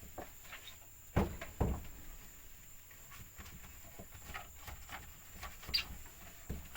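Scattered light knocks and rustling from objects being handled, with two louder thumps about a second in.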